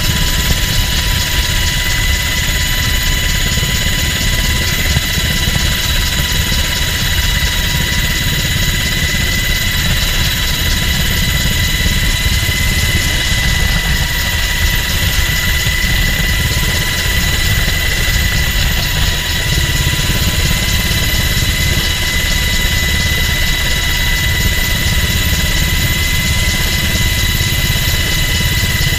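Coast Guard MH-60 Jayhawk helicopter in flight, heard from inside the cabin with the side door open. Its twin turbine engines and rotor make a loud, steady rumble, with a steady high-pitched whine over it.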